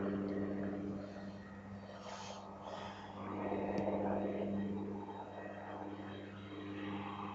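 Helicopter in flight at a distance: a steady low drone of engine and rotor, swelling louder for about a second in the middle and then easing off.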